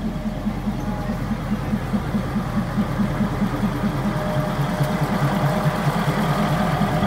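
Diesel railcar engine of the train running steadily close by, a low rhythmic throb.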